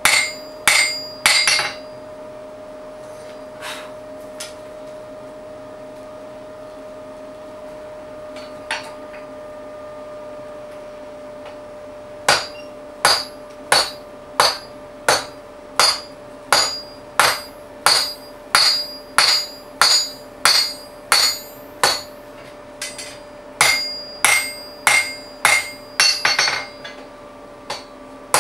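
Blacksmith's hand hammer striking a red-hot steel bar on an anvil, forging it. A few ringing blows come at the start. After a pause of about ten seconds, a steady run of blows follows at roughly one a second, with a short break about two-thirds of the way through.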